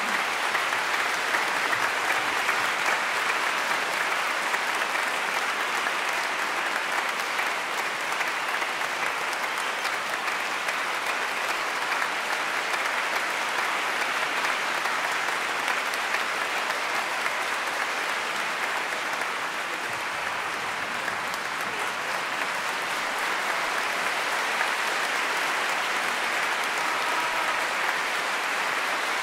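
A concert-hall audience applauding steadily, a dense even clapping.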